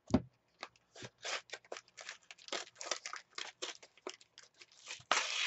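Trading-card starter pack being torn open by hand: a quick run of short crackling rips and crinkles of its plastic and card packaging, with one longer, louder tear about five seconds in.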